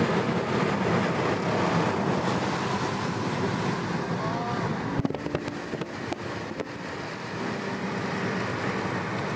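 Car driving on a wet road in the rain, heard from inside the cabin: a steady rush of tyre and rain noise, with a few light clicks about halfway through.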